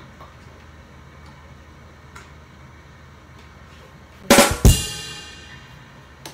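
Short drum-kit sting: two quick loud drum hits followed by a crash cymbal ringing out and fading over about a second and a half.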